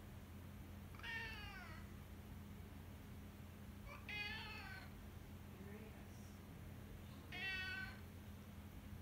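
Domestic tabby cat howling: three drawn-out meows, each under a second long and about three seconds apart, the first sliding down in pitch.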